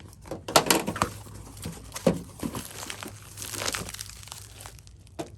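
Packaging being opened by hand: plastic crinkling and rustling with scattered sharp crackles, loudest about half a second in.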